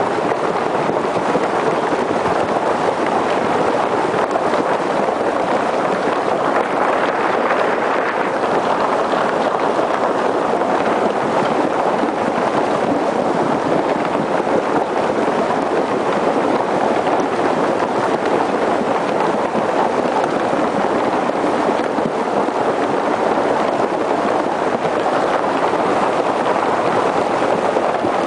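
Steady roar of fast-moving, churning river water from a flood surge, unbroken and even in level.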